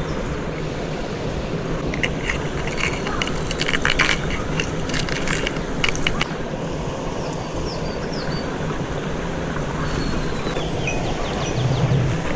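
Steady rush of stream water, with a cluster of small clicks and rattles between about two and six seconds in.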